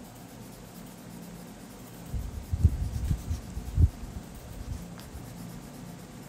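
Colored pencil shading on paper: quick back-and-forth strokes come through as a run of dull low knocks and rubs from about two seconds in, lasting about two seconds, over a faint steady hum.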